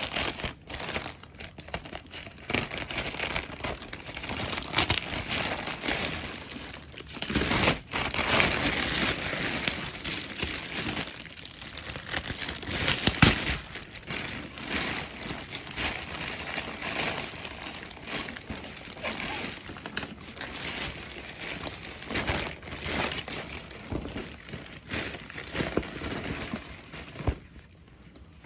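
Parcel packaging crinkling and rustling as it is handled and opened, with many small crackles. There is a louder stretch about a quarter of the way in and a sharp loud crinkle near the middle.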